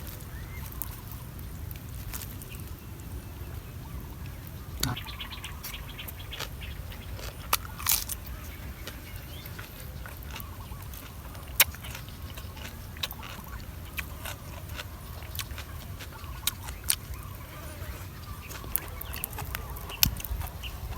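Eating sounds from papaya salad: scattered sharp crunches and clicks at irregular intervals over a steady low rumble.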